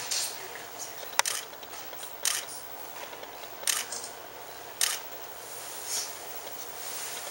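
Six or so short, sharp clicks, spaced irregularly a second or so apart, over steady background noise.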